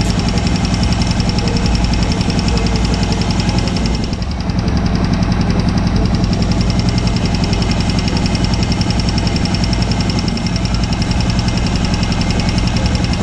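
Air-cooled motorcycle engine idling steadily just after a cylinder head gasket repair, running in a way the mechanic judges sounds good. The level dips briefly about four seconds in.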